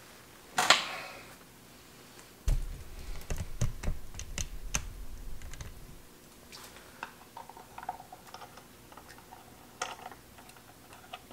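Clicks and knocks of hands handling bench test equipment, changing cable connections back to the frequency counter: one sharp click about a second in, a busy run of clicks with low bumping for a few seconds, then lighter scattered clicks.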